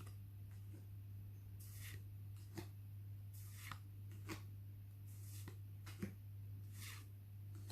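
Pokémon trading cards being handled and slid through the hand: scattered soft clicks and a few short swishes of card against card, over a steady low hum.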